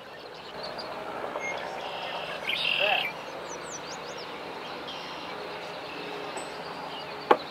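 Outdoor ambience of a steady low background hum with birds chirping and calling, the loudest call about three seconds in, and one sharp knock near the end.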